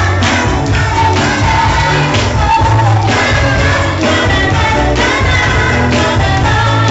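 Music with singing and a strong bass line, playing steadily and loud.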